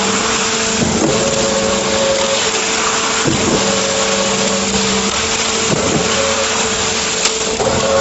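Diesel concrete mixer pump running steadily under load, its drum discharging wet concrete through the hopper grate, with a short knock about every two seconds.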